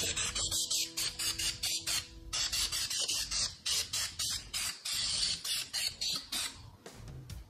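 Aerosol can of red implement spray paint hissing in rapid short bursts, several a second, as it is sprayed onto the underside of a steel mower deck.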